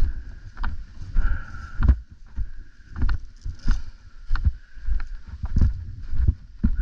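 Heavy thuds about every half second to second, the rhythm of footsteps, with gear and clothing jostling against a body-worn camera as an airsoft player walks.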